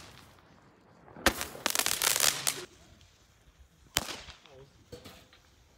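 Firecrackers going off: a rapid crackling string of bangs for about a second and a half, then a single sharp bang about four seconds in.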